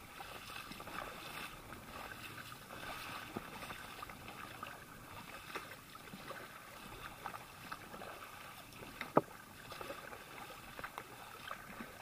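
Kayak paddle strokes in choppy sea water, with the sea splashing and lapping against the kayak's hull, and a sharp tap about nine seconds in.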